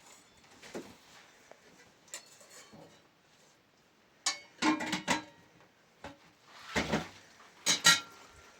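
Kitchen dishes and utensils clattering: a few sharp knocks with brief metallic ringing, coming in two clusters about halfway through and near the end.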